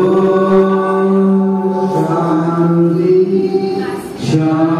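Devotional bhajan singing: voices holding long, drawn-out notes, stepping to a new pitch about two seconds in and breaking briefly for a breath about four seconds in.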